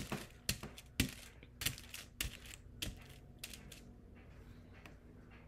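Light, sharp clicks and taps from hands pressing clear transfer tape down over rhinestones seated in a rhinestone template. There is about one click every half second for the first three and a half seconds, and then it goes quieter.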